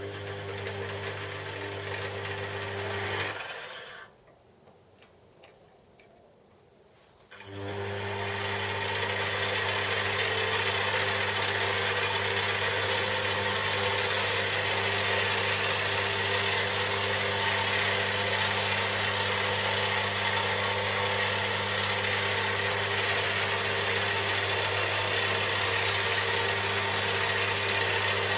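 Electric metal lathe motor running with a steady hum, turning a steel bar. It stops for a few seconds and starts again, then a continuous rough cutting hiss builds as the tool takes a cleanup cut along the bar.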